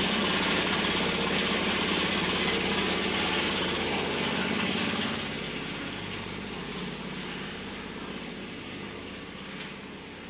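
Compressed-air spray gun hissing as it sprays finish, stopping a little under four seconds in, over the steady running of an air compressor that grows fainter toward the end.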